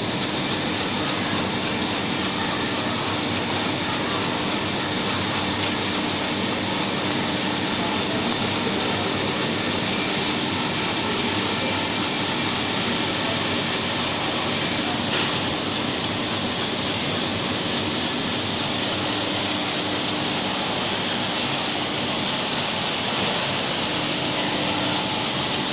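Steady noise of a denim laser engraving machine at work, its fume extraction drawing off the smoke as the beam burns a camo pattern into denim, with a faint hum under it and one brief click about halfway through.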